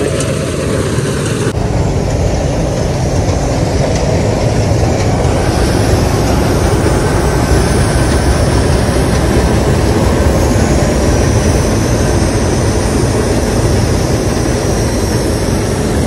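Steady diesel engine noise heard from a tractor's driver's seat, mixed with a Preet 987 combine harvester running and cutting paddy close alongside.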